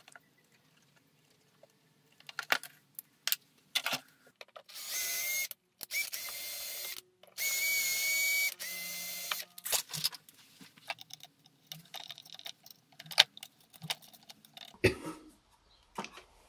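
A small electric motor whirring in four bursts of about a second each, among scattered clicks and taps of small parts being handled on the bench.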